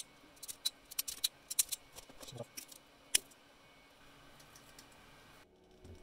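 Ferrule crimping pliers clicking as they squeeze ferrules onto stripped wire ends: a quick series of sharp clicks over the first three seconds, the loudest just after three seconds in.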